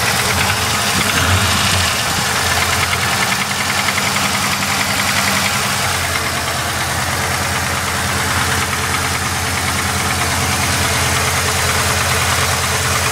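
Holden VS Commodore's supercharged L67 3.8-litre V6 running with a steady, rhythmic knocking from the engine, a knock whose cause the owner does not know.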